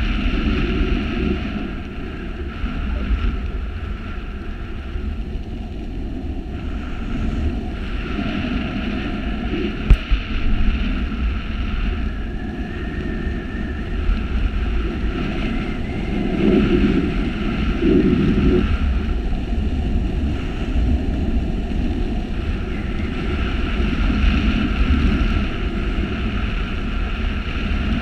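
Wind rushing over the microphone of a skydiver's camera during the parachute descent: a steady rumbling buffet that swells and eases in gusts, strongest about two thirds of the way in, with one sharp click about ten seconds in.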